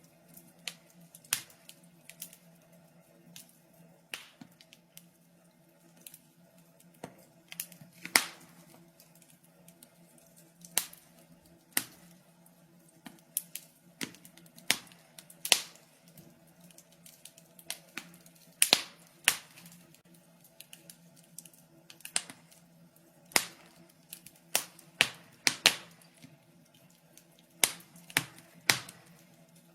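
Wood fire crackling in a fireplace: irregular sharp pops and snaps, sometimes in quick clusters, over a faint steady hum.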